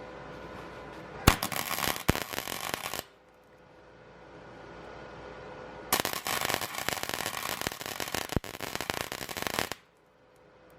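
Electric welder arc crackling and sputtering in two bursts of a couple of seconds and nearly four seconds, laying weld into a broken exhaust manifold stud snapped off below the surface of a Ford 5.4 3V cylinder head, building it up before a nut is welded on.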